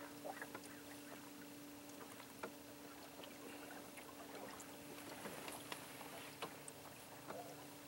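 Electric trolling motor humming steadily and faintly, with small splashes of water against the boat's hull.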